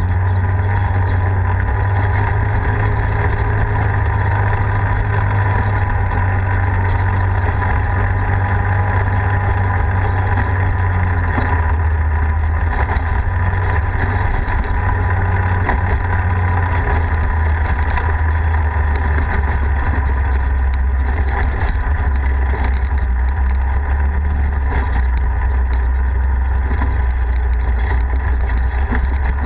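Polaris RZR 4 side-by-side's engine running steadily with a constant low drone while driving on a rough dirt road, with small clatters and knocks from the ride throughout.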